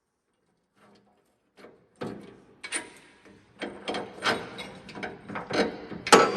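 Hand tools working on steel bolts and brackets: a run of irregular metallic clicks and clanks with short ringing, starting about two seconds in and getting louder near the end.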